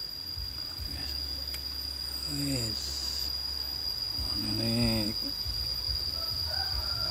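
Insects trilling steadily in one continuous high-pitched tone.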